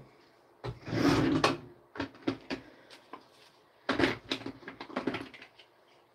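A run of knocks and clatters from things being handled at a bathroom counter and cabinet, the busiest stretch about a second in and another cluster about four seconds in.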